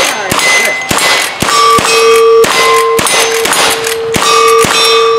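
A rapid string of lever-action rifle shots, about two a second, each hit answered by the ringing of steel targets; a steady metallic ring from one target keeps sounding as it is struck again and again.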